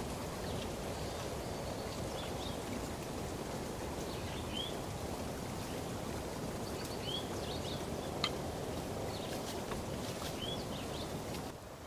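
Steady background hiss of open-air ambience with faint, short rising bird chirps every couple of seconds and a single sharp click about eight seconds in. The hiss drops away shortly before the end.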